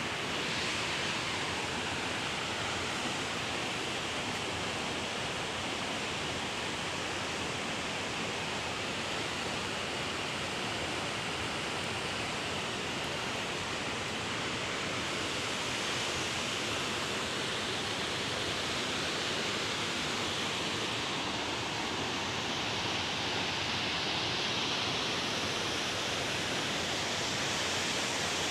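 Waterfall: water falling and rushing in a steady, even roar that holds without a break.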